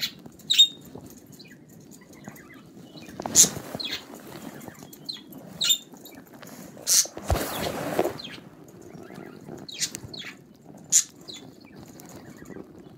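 Pet budgerigars chirping in short, sharp, high calls scattered through the cage, with a rustling burst about seven seconds in, like wings flapping.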